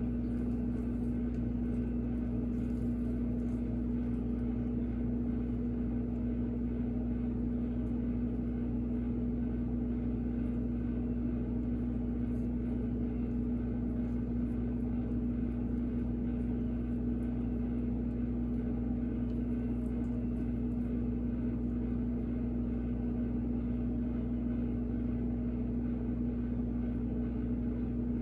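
A steady machine hum with one strong low tone and a rumble beneath it, unchanging throughout.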